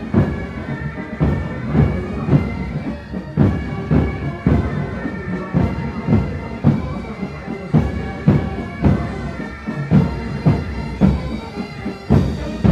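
Military pipe band playing a march: bagpipes hold sustained droning tones, with a steady drum beat about once a second.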